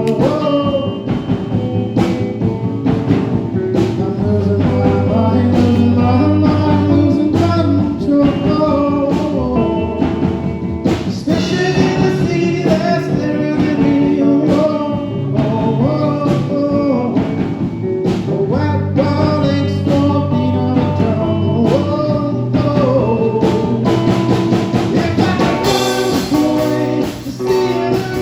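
A rock band playing live, with a lead singer over electric guitar, bass and drums.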